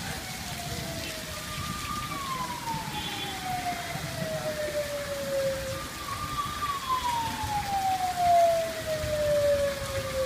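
Steady rain falling, with a siren sounding over it in slow falling wails: each one starts high and drops steadily over about four seconds, and two full wails follow the tail of an earlier one.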